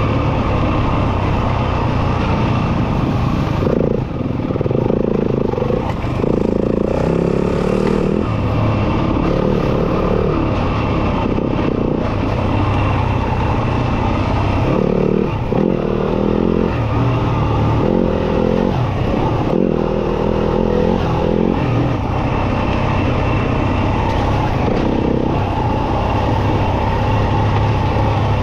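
Off-road motorcycle engine running under way, its pitch stepping up and down every second or so as the throttle is worked.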